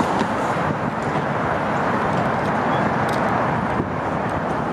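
Steady city street traffic noise, with a few faint clicks.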